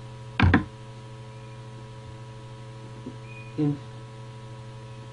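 Steady electrical mains hum, with a single thump about half a second in as the cardboard rain-stick tube is swung around, and a brief short vocal sound near the end.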